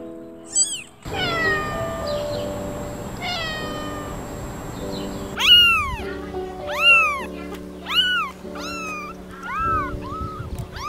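Kittens mewing again and again in short, high-pitched calls, a few in the first half and then in quick succession from about halfway on, over background music with sustained tones.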